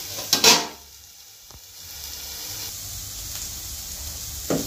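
Aluminium lid clanking twice onto a metal frying pan, then the diced carrots and onions frying with a low steady sizzle, and a short spatula scrape near the end.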